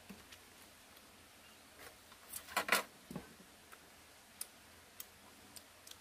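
Food packaging and tableware being handled while eating: a short burst of crackling clicks about two and a half seconds in, then a few single light clicks.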